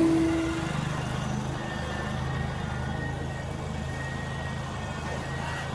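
A motor vehicle engine running steadily with a low hum. A higher steady whine, carried over from just before, cuts off within the first second.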